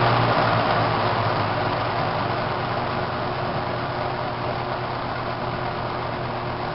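Old Evenflow three-speed box fan running: a steady rush of air over a low, steady motor hum, slowly growing quieter.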